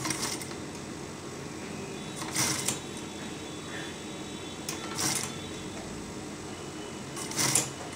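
Industrial single-needle sewing machine stitching in four short bursts, each well under a second, as fabric is gathered by hand into a ruffle between runs, over a steady low hum.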